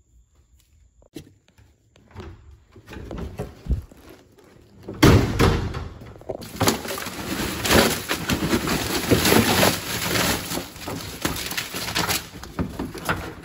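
Cardboard, plastic wrap and paper scraps rustling and crumpling as recycling is tipped into a bin. A loud thump about five seconds in, then steady crackling rustle that fades near the end.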